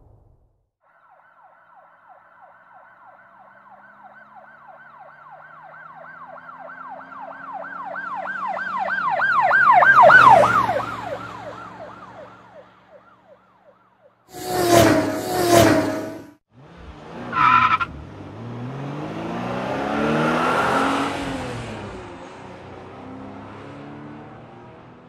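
An emergency-vehicle siren wailing up and down quickly, growing louder for about ten seconds and then fading away. Then come two loud short blasts, a brief high squeal, and a vehicle passing by, its engine note sliding down as it goes.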